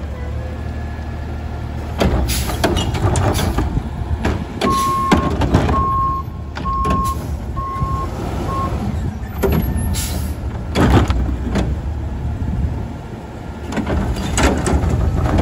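Natural-gas-powered Autocar ACX garbage truck running, its engine revving up about two seconds in to drive the Curotto-Can arm's hydraulics, with metal clanks and bangs as carts are gripped, set down and lifted. A backup alarm beeps five times at an even pace in the middle.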